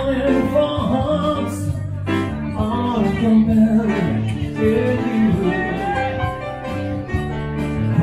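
Live piano-bar music played on a keyboard, with a bass line under it and a male voice singing.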